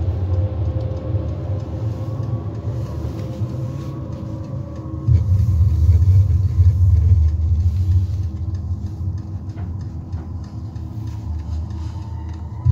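Low rumble of a car on the move, heard from inside the cabin, swelling about five seconds in and then easing off.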